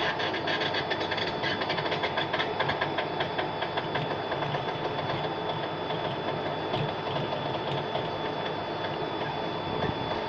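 Biomass briquetting machine pressing coffee husk, running as a steady mechanical drone with a steady whine and a fast, even clatter that fades after about four seconds.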